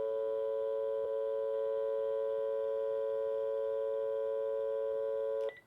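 Dial tone from a landline phone on an Ooma Telo Air 2 home phone base station: a steady, unbroken tone that cuts off suddenly about five and a half seconds in.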